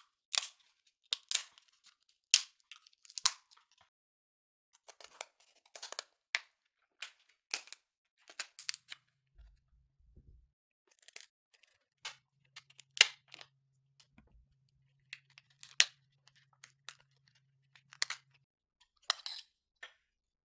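Kitchen shears snipping through cooked shellfish shell: a series of sharp, crunchy snips, roughly one a second and irregularly spaced.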